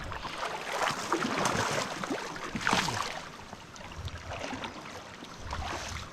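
Water sloshing and splashing as someone wades and steps along a shallow river, with irregular scuffs and knocks of footing.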